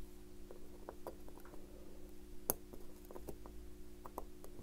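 Small, faint clicks and taps of steel tweezers and a pegwood stick working at the yoke spring of a Bulova Accutron 218 tuning-fork watch movement, with one sharper click about two and a half seconds in, over a steady faint hum.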